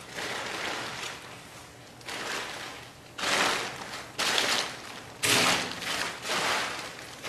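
Plastic sheeting crinkling and rustling underfoot as a performer steps across it, in surges about once a second.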